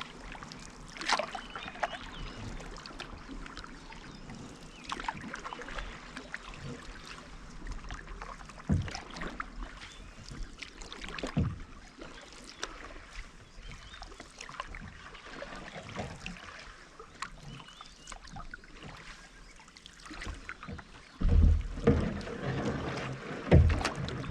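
Canoe paddling on calm water: paddle strokes splashing and dripping, with scattered sharp knocks of a paddle against the canoe. Near the end come several louder low thumps.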